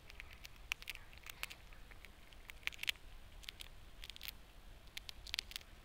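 Grey squirrel gnawing and cracking a nut: irregular sharp crunches and clicks.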